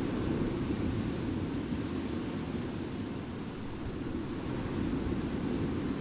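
Calm sea waves washing onto a beach: a steady, low rushing of surf with no distinct breaks.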